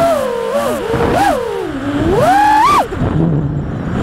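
A 5-inch FPV quadcopter's brushless motors and propellers whine, the pitch rising and falling with the throttle. It climbs to a high peak about two and a half seconds in, then drops abruptly to a low hum as the throttle is cut for a flip.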